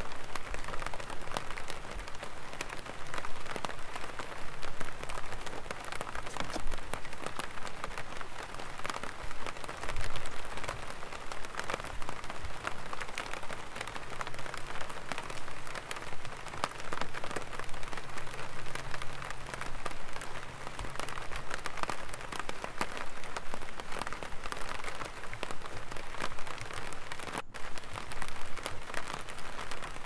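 Light rain falling on an umbrella: many small drops tapping irregularly and without a break.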